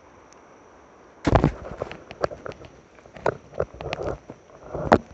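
Water splashing and sharp slaps as a smallmouth bass held by the lip is lowered into the river for release, starting with a loud thump about a second in, then irregular slaps and clicks.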